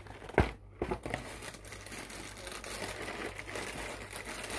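Plastic cereal bag crinkling and rustling as it is worked to get stuck cereal out. Two sharp knocks come in the first second, then a steady rustle.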